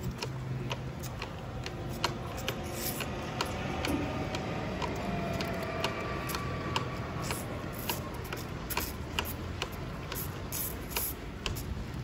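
Calves suckling at a multi-teat milk feeder bucket: irregular sucking clicks and smacks from the rubber teats over a steady background noise.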